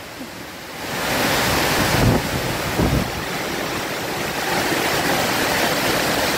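Storm wind and driving rain: a loud, even rushing noise with wind buffeting the microphone. It swells about a second in, with two heavier low gusts about two and three seconds in.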